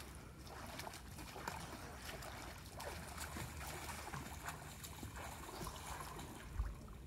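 Faint lapping and trickling of lake water, with small splashes and ticks scattered throughout. A low thump about six and a half seconds in.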